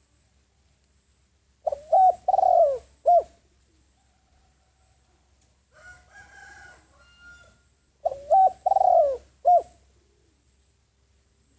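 Spotted dove cooing: two phrases, about six seconds apart, each a short note, a long falling note and a short closing note. A fainter, higher call sounds between the two phrases.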